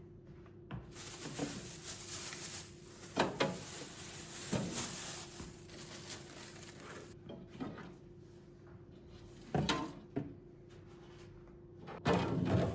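Household handling noises while a refrigerator is reorganised: a rustling hiss for several seconds, a few knocks of containers being set down and a drawer being moved, with a louder clatter near the end. A faint steady hum runs underneath.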